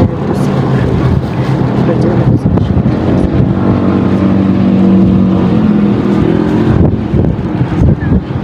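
Strong wind buffeting the microphone with a heavy low rumble, and a steady low hum for a few seconds in the middle, under a quietly murmured prayer.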